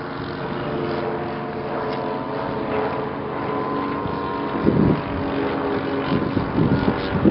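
The Zenoah G62 two-stroke petrol engine of a 1/3-scale model biplane running steadily in flight, turning the propeller through a reduction gearbox. There are a couple of short louder bursts about five seconds in and near the end.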